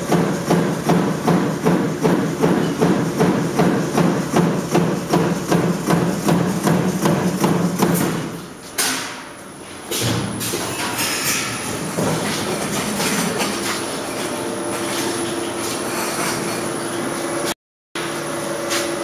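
Power stamping press punching sheet metal in a steady rhythm, about two and a half strokes a second, which stops about eight seconds in. After that comes a steady hum of shop machinery with scattered metallic clanks, broken by a brief dropout near the end.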